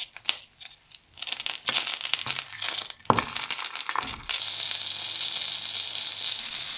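Meat-free sausages frying in olive oil in a non-stick pan: crackling and spitting that changes abruptly a few times, settling about four seconds in into a steady sizzle.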